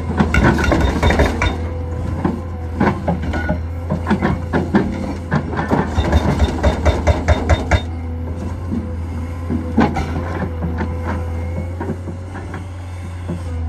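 Caterpillar 385C excavator's hydraulic hammer driving its chisel into the ground over the steady running of the excavator's diesel engine. The blows come in bursts, with an even run of about four a second from about six to eight seconds in, then mostly engine with an occasional knock.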